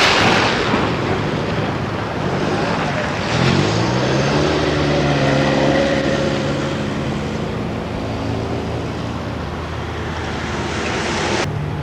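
A motor vehicle driving past: an engine hum that rises in pitch about three seconds in and then holds steady, over a continuous hiss.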